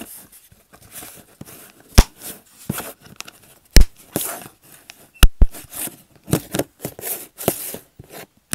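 A plastic slime container and its lid being handled and closed: several sharp plastic knocks and clicks, the loudest about 2 s and 4 s in, with crinkling and rustling between them.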